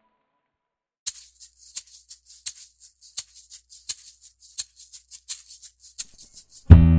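Scraper strokes taking old wax off a surfboard: quick, hissy scrapes at a steady rhythm of about three a second, starting about a second in.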